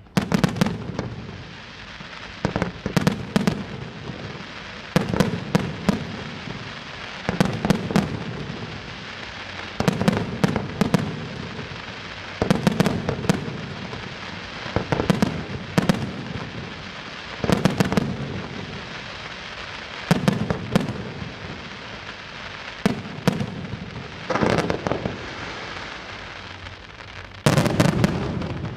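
Fireworks display: clusters of sharp, loud bangs from bursting fireworks, repeating about every two and a half seconds, with echoing rumble in between.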